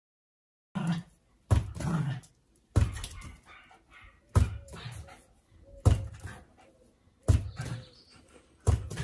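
A small dog at play, with seven sudden thuds about a second and a half apart, mixed with the dog's barks.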